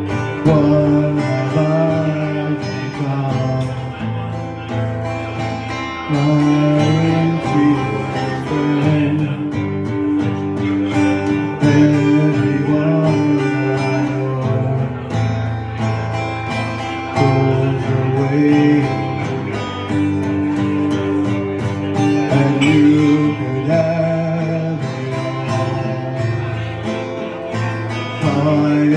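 A man singing into a microphone while playing an acoustic guitar, with sustained chords under the melody.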